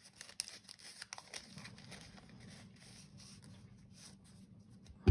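Soft rustling and small clicks of sticker sheets and planner paper being handled and peeled, with one sudden thump at the very end.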